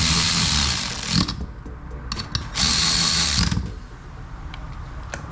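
A power tool runs in two short bursts of about a second each, with a sharp knock between them.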